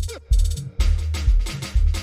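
Electronic dance music from a DJ set: a deep kick and bass on a steady beat, about two hits a second. Near the start a short sound sweeps down in pitch, and a little under a second in busy hi-hats and percussion come in over the beat.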